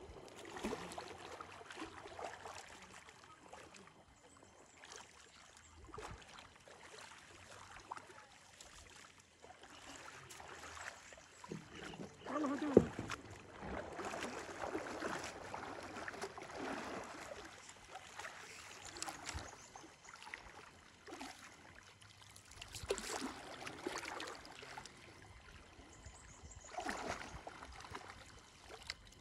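Shallow river water sloshing and splashing in irregular swells as people wade through it and scoop a hand net, with one sharp knock about halfway through.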